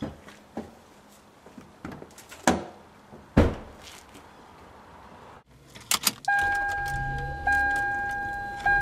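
Two thumps from a Toyota sedan's door as the driver gets in, then keys jangling and the car's warning chime: a steady two-note tone that sounds as the key goes into the ignition.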